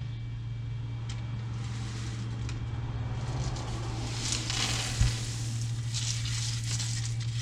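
Loose birdseed, a mix of sunflower seeds and mealworms, rustling and crackling as it is tipped from the old feeder into the new screen feeder. It is loudest in the second half, with one sharp knock about five seconds in.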